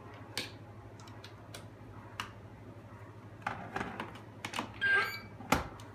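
Irregular plastic clicks and taps as the alarm's control panel is handled, plugged in and switched on. A brief high tone sounds near five seconds in, and the loudest click comes just after it.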